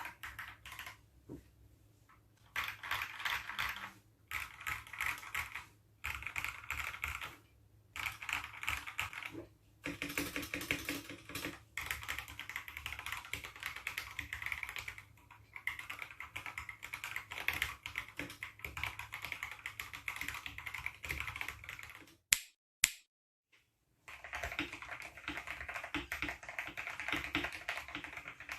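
Typing on a Tes 68 mechanical keyboard: runs of rapid key clicks in bursts of a few seconds with short pauses between them. About 22 seconds in, two sharp, louder clicks are followed by a brief silence before the typing resumes.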